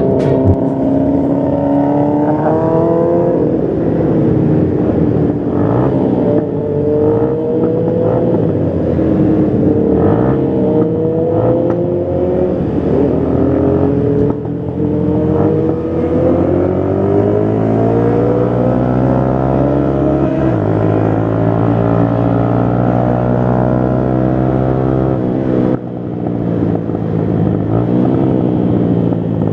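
Motorcycle engines running on a group ride, their pitch rising and falling with the throttle. In the second half one long climb in pitch ends in a sudden drop.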